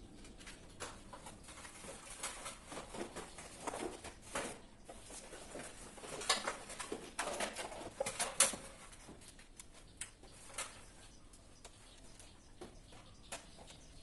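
Irregular clicks, taps and rustling of tools and parts being handled during work on a distribution board, busiest and loudest in the middle and sparse toward the end.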